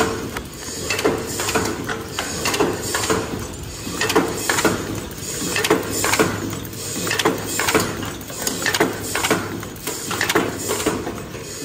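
Automatic kraft paper boat tray forming machine running, with a regular mechanical clatter about twice a second over a steady hum.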